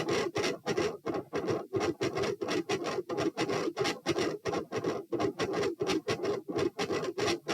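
Heart beating fast and loud, heard through a stethoscope over the pulmonic area, a steady run of repeated beats with a scratchy, rubbing edge from the chest piece.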